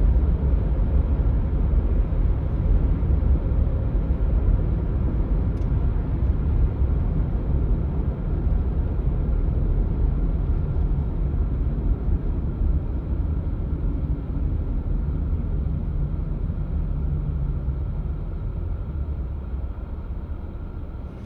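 Steady low outdoor rumble, fading slowly near the end.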